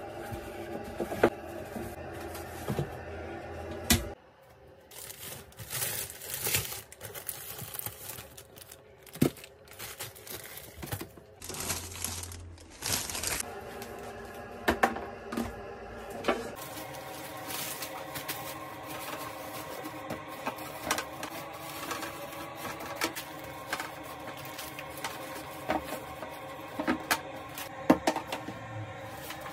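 Hands handling things in a small room: a wall cabinet door, sharp clicks from a plastic wipes container and its lid, and crinkling and rustling as the container and wipes are handled. The rustling is loudest in two bursts in the first half. Steady background tones stop about four seconds in and return about halfway through.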